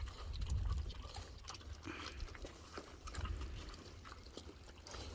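Pig eating pineapple and other fruit scraps: wet chewing with many short smacks and crunches.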